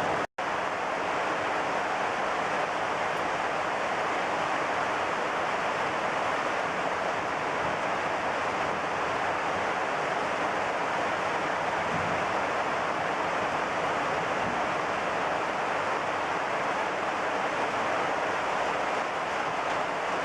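Heavy rain pouring down steadily in a thunderstorm, with a momentary break in the sound near the start.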